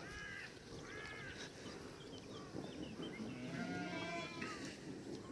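Sheep in a flock of ewes and lambs bleating as they are driven along by a herding dog: three separate bleats, the longest about four seconds in.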